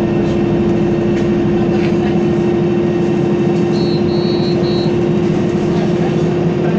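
Isuzu Citibus city bus driving along, heard from inside the cabin: steady engine and road noise with a constant droning hum. Three short high beeps sound about four seconds in.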